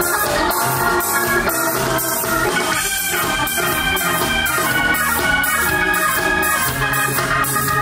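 Live band playing funk: organ chords held over drums keeping a steady beat.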